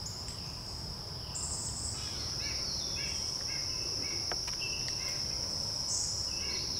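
Insects droning steadily as one constant high-pitched tone, with short high chirps repeating from about two seconds in.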